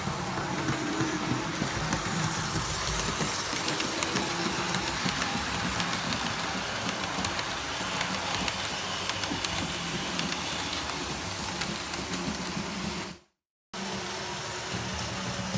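Model railway train running along the track: a steady motor hum with light clicking of the wheels over the rails. The sound drops out briefly near the end.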